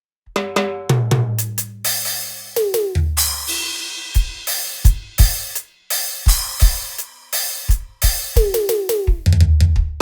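Roland SPD-30 Octapad playing a programmed drum pattern: kick, snare, cymbals and hi-hat, with short hits that drop in pitch and some low held bass notes. It starts about a quarter second in.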